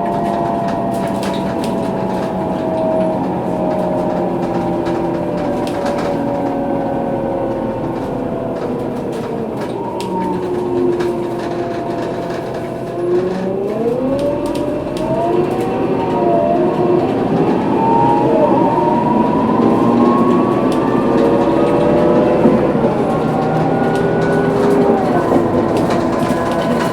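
Scania K230UB bus's rear-axle differential whining under its Scania DC9 engine and ZF Ecomat automatic gearbox. The whine falls in pitch as the bus slows over the first ten seconds, dips lowest a little after that, then rises again as the bus pulls away and gathers speed.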